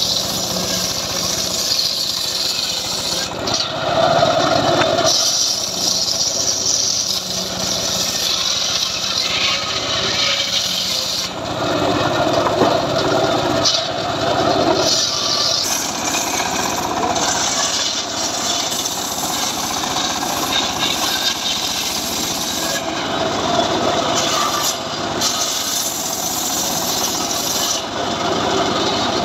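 Homemade 'srekel' circular sawmill cutting through johar logs. The blade runs continuously in the wood, and the sound shifts every few seconds as the cut goes on.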